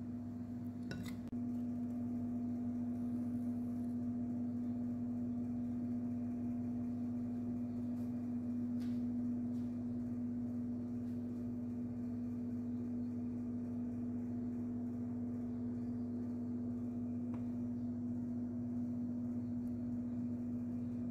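A steady hum at one fixed low pitch, unchanging throughout, with a faint click or two.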